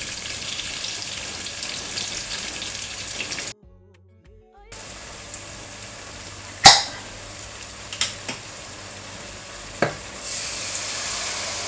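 Sliced onions sizzling in hot oil in a pot while a wooden spoon stirs them, with a few sharp knocks against the pot, the loudest a little past halfway. The sizzle cuts out for about a second a third of the way in, and grows louder near the end as tomato is poured into the hot oil.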